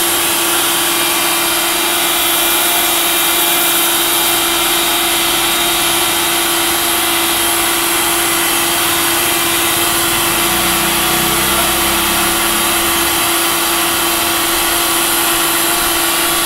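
Small electric pressure washer (motorbike washer) running steadily with a constant hum and the hiss of its water spray on a carpet.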